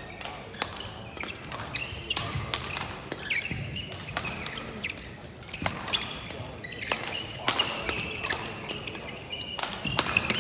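Badminton doubles rally: sharp cracks of rackets striking the shuttlecock in quick exchanges, with court shoes squeaking on the playing mat.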